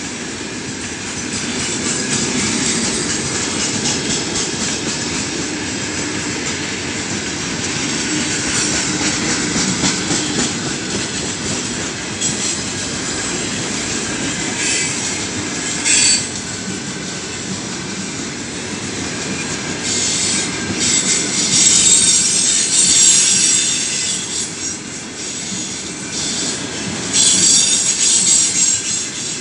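Open freight wagons of a long, heavy freight train rolling past close by: a steady rumble of steel wheels on the rails, with a few sharp clacks around the middle. Stretches of louder, high-pitched wheel screech come about two-thirds through and again near the end.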